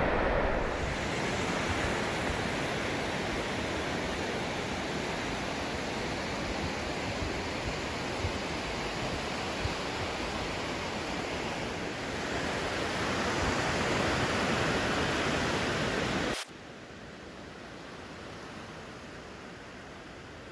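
Steady wash of ocean surf. About sixteen seconds in it cuts off suddenly to a much quieter hiss.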